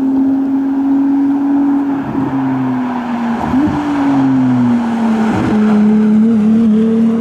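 Ferrari 296 GTS's twin-turbo V6 running hard on the move, a steady high engine note over wind and road noise with the roof down. The note breaks briefly three times and its pitch shifts, sinking gradually in the middle.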